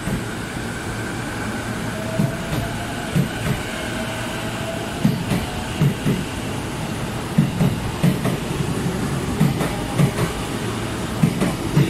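E233-6000 series electric train gathering speed along a station platform: its wheels knock over the rail joints in pairs that come faster toward the end, over a steady rolling rumble, with a faint steady whine from its Mitsubishi IGBT-VVVF inverter drive in the first half.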